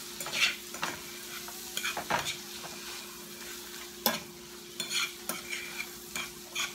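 A utensil scraping and clinking irregularly against a frying pan as salmon with onions and bell peppers is stirred and broken up, over a steady sizzle of butter and oil.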